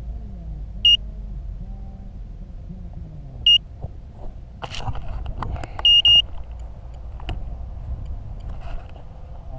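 A crashed FPV racing quadcopter's buzzer beeping: single short, high beeps every two to three seconds, then a double beep about six seconds in. Around five to seven seconds in come scattered clicks and knocks as the quad is moved in the grass.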